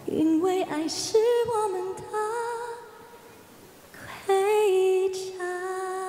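A woman singing a Mandarin pop song into a microphone: long held notes with vibrato in two phrases, with a brief break about three seconds in, over very faint accompaniment.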